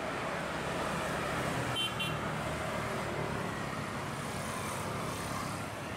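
Steady din of car and motorcycle engines around a busy quay, with a brief high beep like a vehicle horn about two seconds in.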